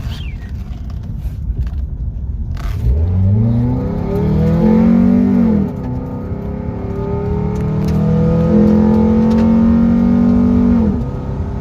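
Nissan QR25DE 2.5-litre four-cylinder with an aftermarket header and cold air intake, accelerating hard. After a few seconds of low road rumble the engine note climbs steeply, drops at a gear change about halfway through, climbs again more slowly, then falls away near the end as the pull ends.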